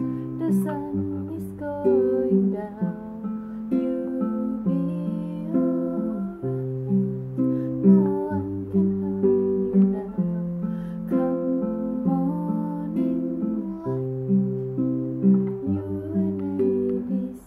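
Nylon-string classical guitar fingerpicked, rolling arpeggiated chords over a bass note that changes about every two seconds.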